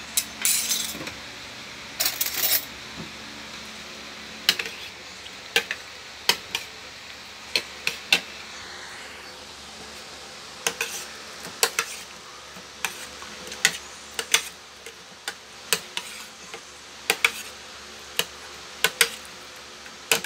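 A metal fork and dishes clinking against a plastic bowl and a glass tabletop while boiled shrimp are handled. Two short rattles in the first three seconds, then irregular sharp clinks about once a second.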